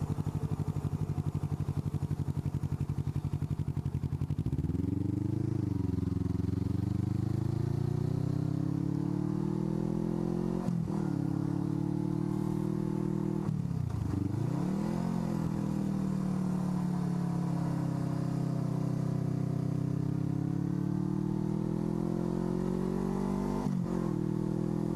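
Suzuki Inazuma 250 parallel-twin engine with an Ixil aftermarket exhaust, ticking over steadily, then pulling away about four seconds in. The revs rise and fall through several gear changes, with a deeper drop and pick-up about 14 s in.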